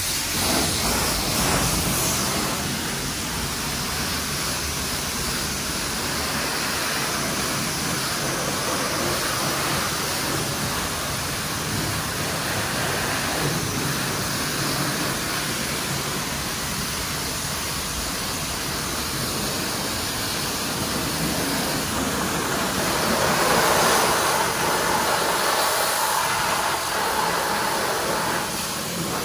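High-pressure wash wand spraying water onto a car, a steady hiss of the jet and spatter on the bodywork. Near the end the spray grows louder and more splashy as the jet strikes a wheel and tyre up close.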